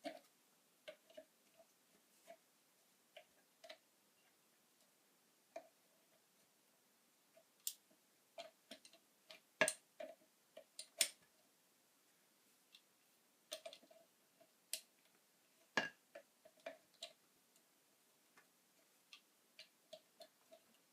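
Faint, irregular light clicks and taps, some ringing slightly, with a few sharper, louder clicks near the middle and again about two-thirds of the way through.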